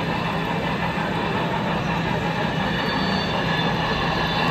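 HO scale model train running along layout track: a steady hum and rolling rail noise.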